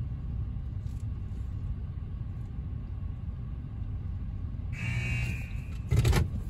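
RYKO UltraSonic 2001 overhead car wash heard from inside the car: a steady low rumble, then a spray hiss comes on suddenly about five seconds in, followed by a short loud blast near the end.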